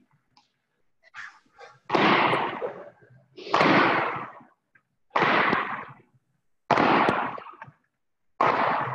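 A person working through jumping lunges, heard over a video-call microphone: five loud rushes of noise, about one every second and a half, each starting sharply and fading away, in time with the repetitions.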